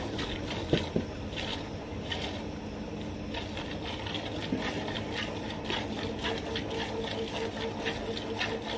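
Hand milking: milk squirting in a steady rhythm of hissing spurts into a half-full steel bucket as the teats are pulled, with two sharp knocks about a second in.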